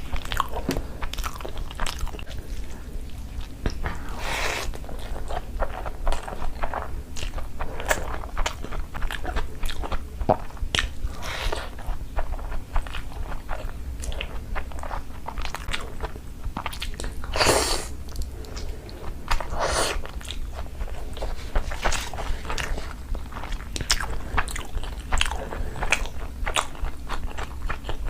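Close-miked eating: chewing and biting of curry, rice and bread, with many small wet mouth clicks and a few louder bites scattered through.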